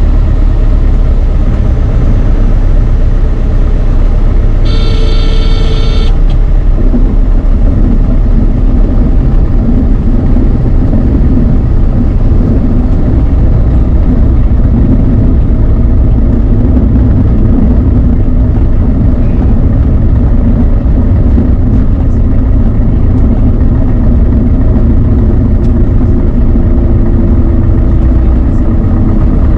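Beechcraft Sundowner 180's four-cylinder Lycoming O-360 engine running steadily with a deep, loud drone. About five seconds in, a brief electronic warning tone sounds for just over a second.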